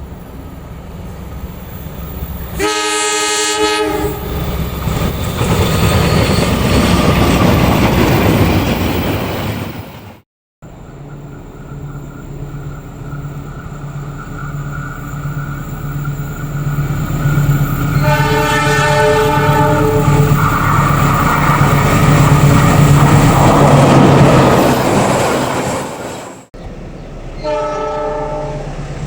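Passing trains sounding their horns in greeting: three separate blasts of one to two seconds each, over the loud rushing clatter of wheels on the rails that swells as each train goes by.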